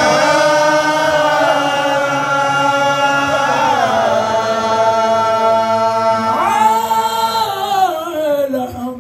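A man chanting an Arabic devotional mawlid poem in praise of the Prophet, unaccompanied, drawing out long held notes with slow ornamented turns. A new phrase rises about two-thirds of the way through and falls away near the end.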